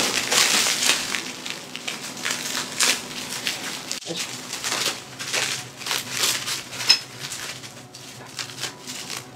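Crinkling, crunching handling noise with many quick clicks and scrapes, loudest in the first second or so, and one sharp click about seven seconds in.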